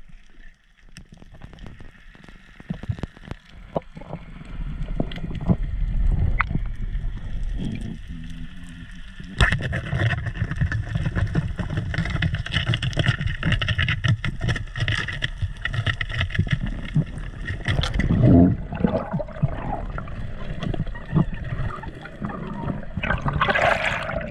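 Underwater noise picked up by a freediver's camera: a steady low rush of water with scattered clicks and knocks, and a sharp crack about nine and a half seconds in, after which it gets louder. Near the end comes a brighter splashing burst as the diver nears the surface.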